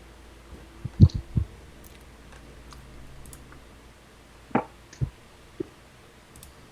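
Scattered clicks and soft knocks: a quick run of three about a second in, then a few more between four and a half and six seconds in.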